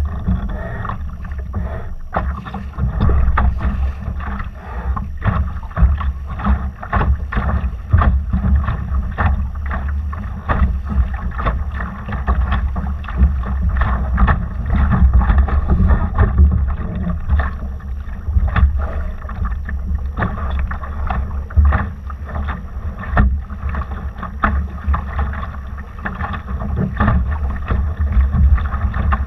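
A Laser sailing dinghy under way: wind rumbling heavily on the microphone, with frequent splashes and knocks of water slapping against the hull.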